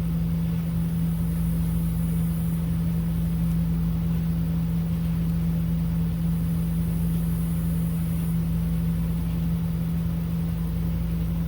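Electric fan running steadily, a constant low hum, blowing out petrol fumes.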